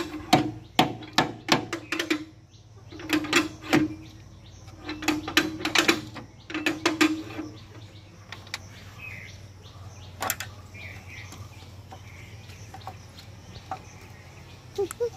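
Metal-on-metal rattling and clicking as a steel screwdriver works against parts inside an opened power tiller gearbox, in four short bursts over the first half. Then quieter, with a single click and faint bird chirps.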